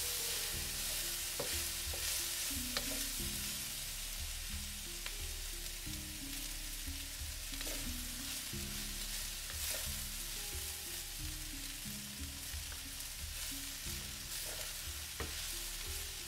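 Rice and shredded vegetables sizzling in hot oil in a stainless steel pan over high heat, being stir-fried with a wooden spatula that scrapes and knocks against the pan many times.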